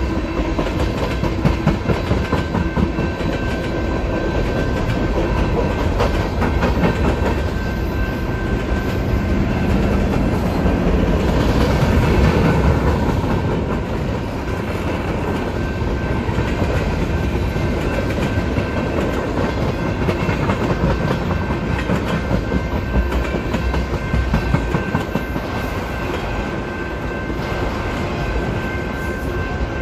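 Freight train cars rolling steadily past: a string of tank cars, a covered hopper and autorack cars, their wheels clattering over the rails with a continuous low rumble.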